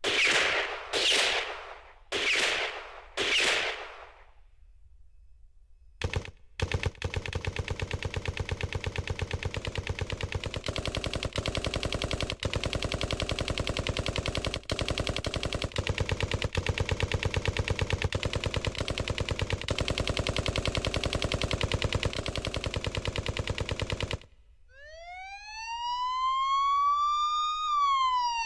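Built-in sound effects from a Casio CT-X9000 keyboard, played one after another. First come four short noisy bursts about a second apart. Then a fast, evenly repeating rattle like machine-gun fire runs for about eighteen seconds and stops suddenly, and near the end a siren tone rises and then starts to fall.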